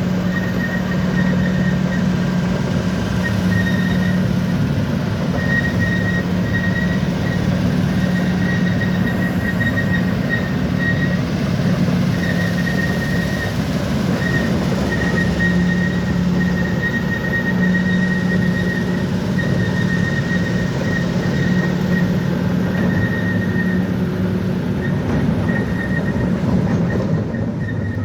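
Bulldozer working: its diesel engine runs steadily under load, with a high squeal coming and going over it.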